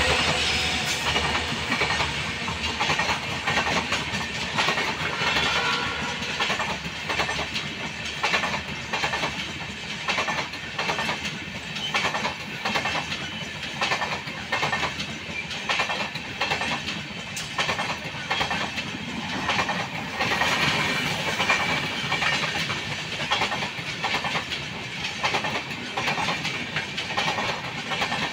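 Indian Railways passenger coaches rolling past, their wheels clattering over the rail joints in a steady clickety-clack of about one and a half beats a second.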